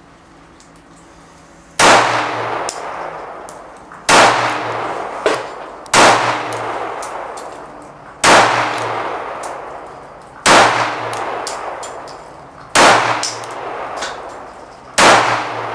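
Seven shots from a Kel-tec PF9 9mm subcompact pistol firing MagTech 124-grain rounds, slow aimed fire about two seconds apart. Each sharp crack is followed by a long echo under the covered firing line's roof. The pistol cycles every round with no malfunction.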